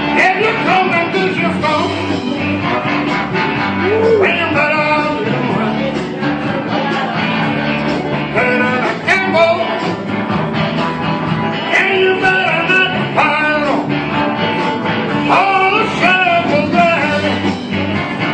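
Live blues and rock-and-roll song in an instrumental break with no sung words: a steady accompaniment, with a lead melody that bends up and down in pitch, phrase by phrase.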